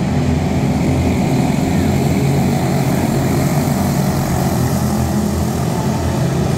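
A pack of quarter midget race cars running flat out on a dirt oval. Their small single-cylinder Briggs & Stratton Animal four-stroke engines blend into one steady, buzzing drone.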